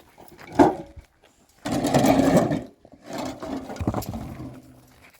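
A loud, harsh animal call in two long parts, the first about a second and a half in and the second just after it, following a short sharp sound near the start.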